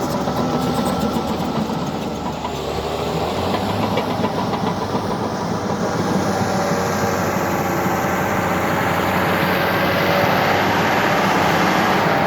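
Heavy diesel earthmoving machinery running steadily, with a rapid clatter in the first second or so and the engine growing louder from about three seconds in.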